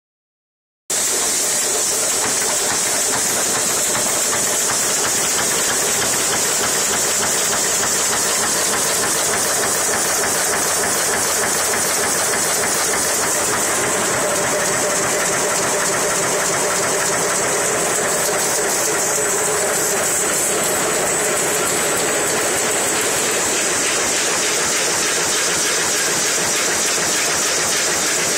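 Sheet-fed printing press running steadily: a dense, even machine noise with a strong high hiss, setting in about a second in.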